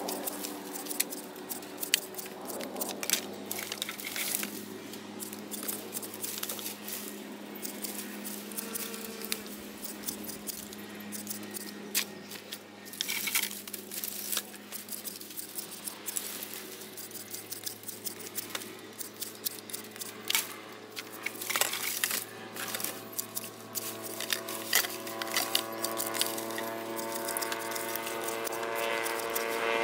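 A small engine running steadily at low speed, its hum growing a little stronger near the end, with frequent sharp clicks and clattering knocks over it.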